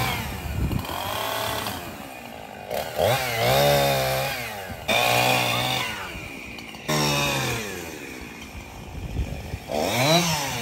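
Chainsaw cutting through fallen tree branches, revved in about five bursts, its pitch rising and falling with each cut.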